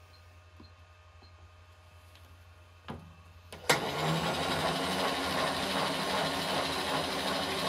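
Two sharp clicks, then a milling machine's motor starts abruptly about four seconds in and runs steadily and loudly.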